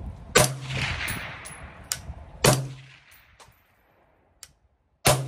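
Three single shots from a suppressed short-barrelled AR-style rifle with a titanium flow-through suppressor, about two seconds apart. Each is a sharp crack followed by a fading echo, with a lighter sharp tick between the first two. The bullet's crack still comes through, so it is not really hearing safe.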